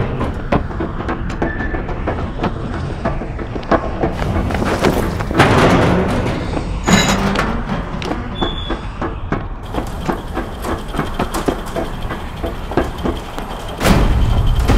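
Layered film sound effects for a city scene: a steady low rumble under dense clattering and clicks. It swells about five seconds in and ends with a heavy hit near the end.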